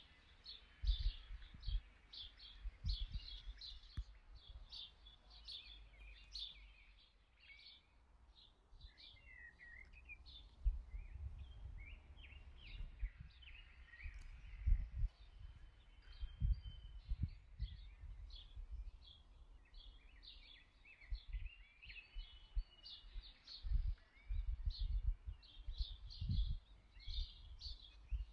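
Small birds chirping and singing in quick, short notes throughout, over irregular low rumbles.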